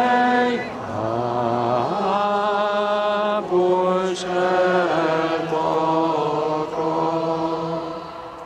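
Singing of a slow melody in long held notes, each about a second, moving from note to note.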